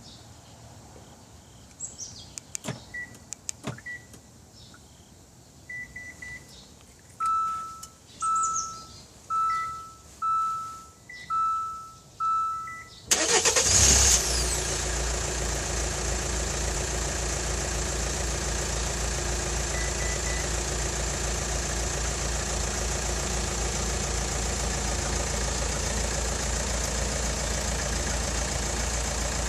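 An X-LINK 900L remote-start alarm working a car: a few relay clicks and short electronic chirps, then six loud single-tone beeps about a second apart. The engine then cranks and starts about 13 seconds in and settles into a steady idle.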